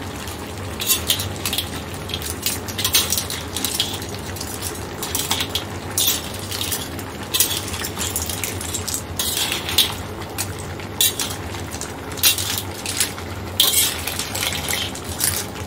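Metal spatula scraping and clinking against a stainless steel wok as a load of shell-on seafood, corn and broccoli is stirred. The strokes come irregularly, over a steady low hum.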